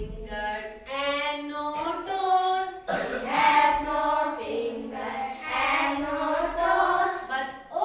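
A class of children singing an action nursery rhyme about an elephant in chorus, with a woman's voice singing along.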